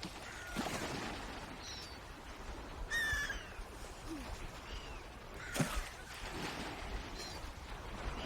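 Birds calling outdoors: short, high, falling chirps scattered through, with one louder call about three seconds in. Two sharp knocks or splashes are heard, one early and one about five and a half seconds in.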